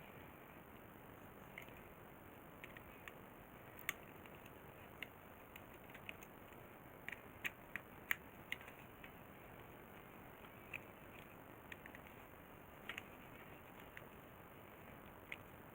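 Irregular small clicks and taps from small tools and parts being handled at a workbench, bunched most densely around the middle, over a faint steady hiss.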